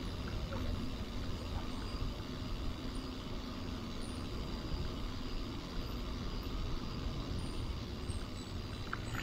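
Steady rolling noise of a bicycle ride: tyres on pavement and wind buffeting a handlebar-mounted camera, giving an even low rumble with no distinct events.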